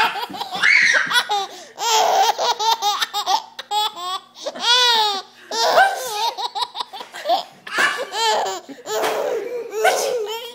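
Eight-month-old baby laughing in repeated bouts, each a run of quick high-pitched laughs with short pauses between.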